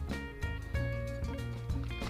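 Background music with a steady beat, plucked-string notes and a strong bass line.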